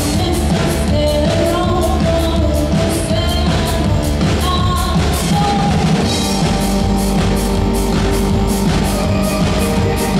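Live rock band playing with a steady drum-kit beat and cymbals, a female lead voice singing held lines over it.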